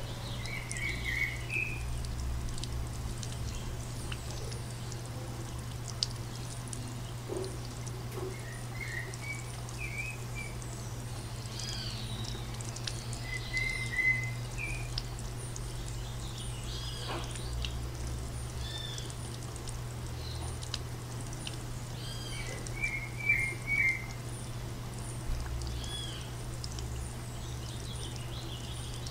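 Birds chirping in short, scattered calls over a steady wash of running water and a low steady hum, with a brief burst of chirps near the end.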